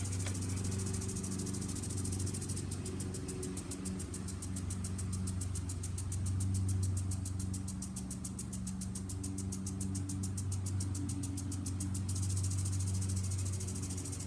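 A lawn mower engine running steadily, its hum swelling and fading as it moves about, with a sprinkler ticking rapidly and evenly over it.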